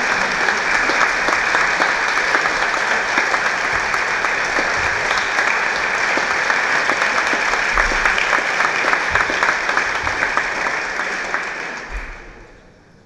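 Audience applauding in a concert hall: a dense, steady clapping that dies away about twelve seconds in.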